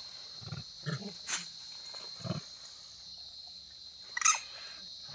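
Steady high drone of insects, with a few short low grunts in the first couple of seconds and a brief shrill call from the rhesus macaques about four seconds in.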